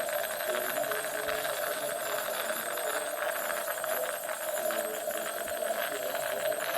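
Dental office equipment running steadily: a continuous mid-pitched hum with thin high whines above it and a fine, rapid crackle throughout.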